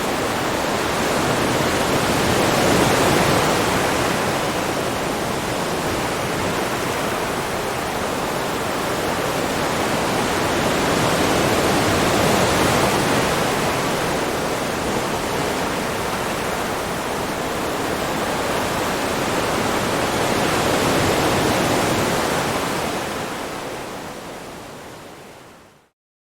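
Ocean waves: a steady hiss of surf that swells and ebbs about every nine seconds, then fades out to silence near the end.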